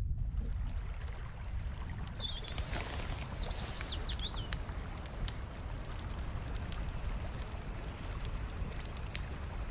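Outdoor nature ambience: a steady low rushing noise with birds chirping a few times about two to three seconds in, and faint clicks later on.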